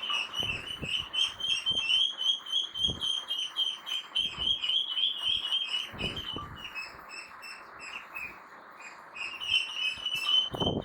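Ducklings peeping rapidly and without a break in high, shrill chirps, with a few dull low knocks and thuds in between, more of them near the end.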